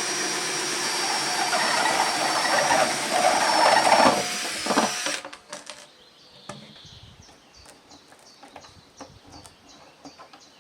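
Power drill running steadily and boring a hole for a chicken drinker, louder as the bit bites in, then stopping suddenly about five seconds in, followed by faint clicks of handling.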